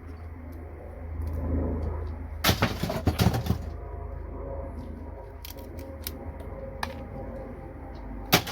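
Plastic connectors cracking and snapping as they are broken off a circuit board by hand: a dense run of sharp cracks about two and a half to three and a half seconds in, a few single clicks after, and one sharp snap near the end.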